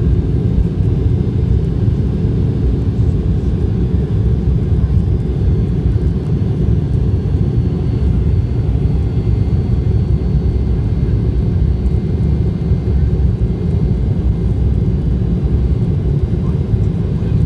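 Embraer 190's GE CF34-10E turbofan engines at take-off thrust, heard inside the cabin during the take-off roll: a loud, steady rumble of engine and runway noise with a faint high whine above it.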